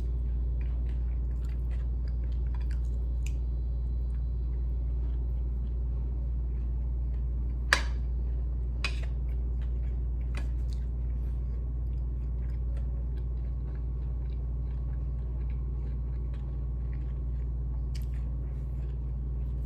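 Close-up chewing and biting of crispy fried chicken feet, with scattered small crunches and two sharper crunches about eight and nine seconds in, over a steady low hum.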